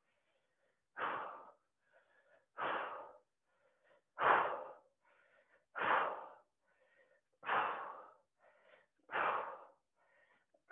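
A woman exhaling hard and rhythmically, six sharp breaths about one every 1.6 seconds, one with each standing knee-to-opposite-elbow crunch. Fainter breaths in come between them.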